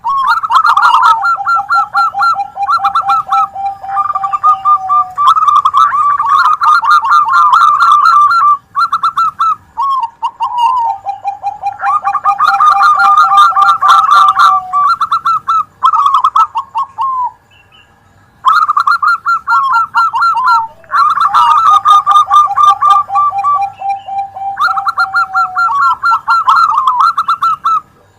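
Zebra doves (perkutut) singing, several songs layered together: high rippling coo phrases over a lower rolling trill. The song stops briefly a few times and starts again.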